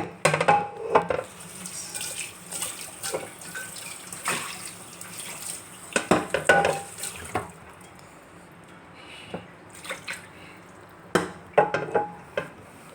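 Washing up at a sink: water splashing, with clinks and knocks of pots and utensils in four short bouts.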